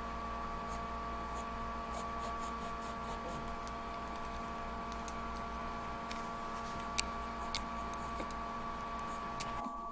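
Pencil scratching lightly on sketchbook paper while shading, under a steady electrical hum and hiss with a constant tone. There are a few faint ticks, and two sharper clicks about seven seconds in.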